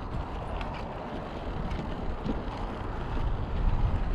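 Wind rumbling over the camera microphone of a moving mountain bike, with the rolling noise of the bike on a dirt trail and a few light clicks and rattles.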